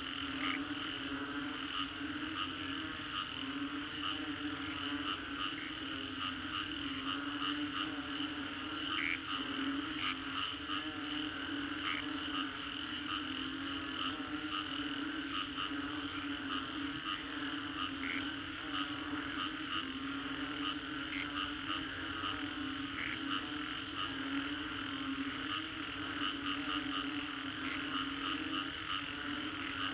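Dense chorus of many frogs calling after a rainstorm. A steady low drone of overlapping calls lies under a thick layer of short, high, rapid calls, with louder single notes popping out every second or two.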